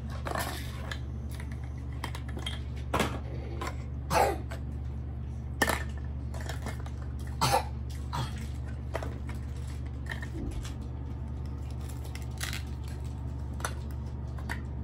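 Plastic toy kitchen pieces and play food being handled: a handful of separate light clicks and knocks, scattered irregularly, over a steady low hum.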